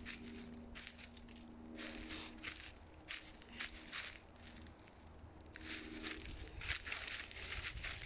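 Footsteps crunching on the ground underfoot while walking, roughly one crunch every half second, uneven in pace.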